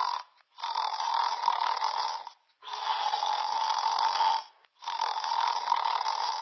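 A person snoring: three snores in a row, each about two seconds long, with only brief pauses between them.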